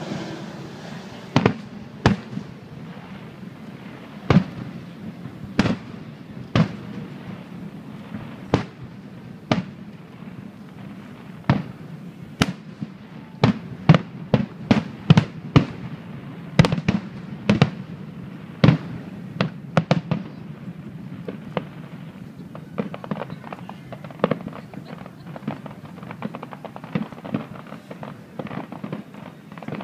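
Aerial fireworks shells bursting in sharp reports at irregular intervals, coming thick and fast through the middle. In the later part they give way to a dense crackling of many small pops.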